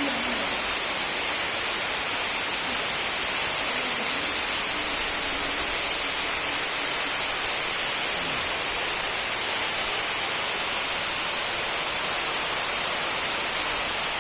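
Steady, even rush of an underground waterfall inside a limestone cave, a hissing wall of falling-water noise that neither builds nor fades.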